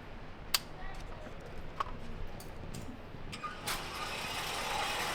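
A few faint sharp clicks, then about three and a half seconds in a motorized range target carrier starts up and runs with a steady whir, reeling the paper target back along its track to the shooting booth.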